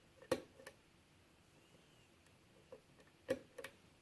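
Lock pick working the pin stack of a 6-pin Euro cylinder lock with a Yale Y1 keyway: faint, sharp metallic clicks, two near the start and another pair about three seconds in. These are the small clicks of single-pin picking as pins are lifted and set.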